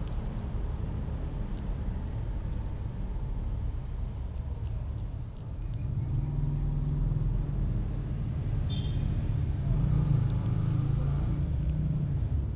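Steady low rumble of a vehicle engine that grows louder about halfway through, with faint small clicks over it.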